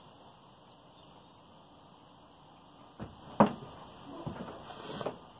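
Quiet room tone, then, about three seconds in, two sharp knocks followed by a stretch of rustling and bumping as the camera is handled.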